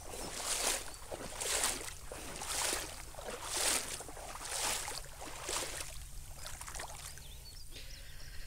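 Footsteps wading through shallow water in a flooded rice paddy, a splash and slosh about once a second, stopping about six seconds in.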